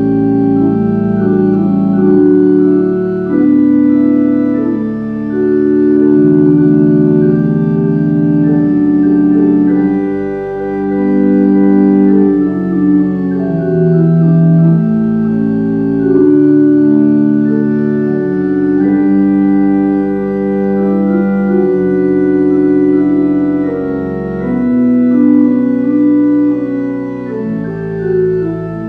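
Organ playing slow, sustained chords that change every second or two over a moving bass line.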